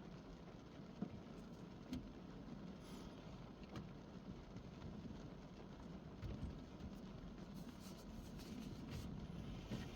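Rain falling on a car, heard from inside the cabin: a steady soft patter, with a few single drops knocking sharply, the loudest about one and two seconds in.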